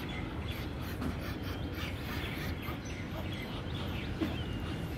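Muscovy ducks pecking at scattered grain, their bills making many short clicks and scuffs, over a steady low background rumble with a few faint bird chirps.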